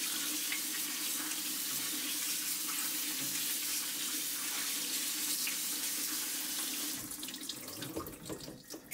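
Cold water from a kitchen tap pouring onto broccoli florets in a stainless steel colander, a steady rush of splashing water. The tap is shut off about seven seconds in, leaving a few scattered drips as the broccoli drains.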